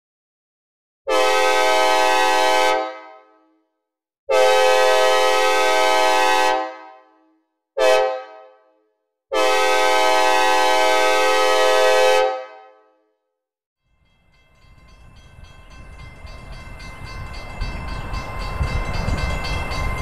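Synthesized recreation of a Nathan K5LA five-chime locomotive air horn sounding the grade-crossing pattern: long, long, short, long, each blast a steady chord with a reverb tail. From about fourteen seconds in, the rumble of an approaching train builds steadily.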